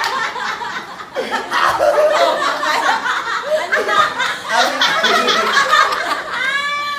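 People laughing and chuckling amid overlapping chatter, with a short high-pitched voice near the end.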